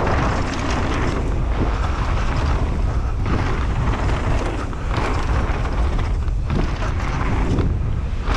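Wind rushing and buffeting over the microphone of a mountain biker's point-of-view camera while riding downhill, with tyre noise on the dirt and frequent clicks and rattles from the bike over rough ground.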